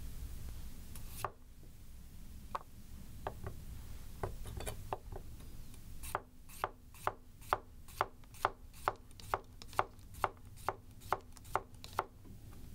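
A 210 mm Yoshikane SKD gyuto slicing cucumber into thin rounds, its edge tapping the cutting board at the end of each stroke. There are a few scattered taps first, then from about six seconds in a steady run of taps about twice a second.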